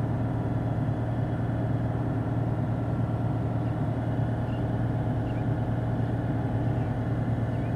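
Audi Q7 engine idling steadily, an even hum with no change in speed.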